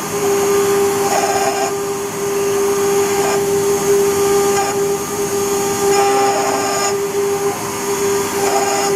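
CNC router spindle running with a steady high whine while engraving copper, the cutting noise swelling and easing every second or two as the bit works along the engraving.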